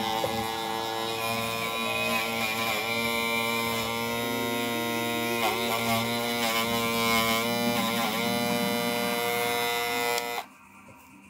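Hair clipper motor running at a steady high pitch, dipping briefly several times as if loaded, then switched off about ten seconds in.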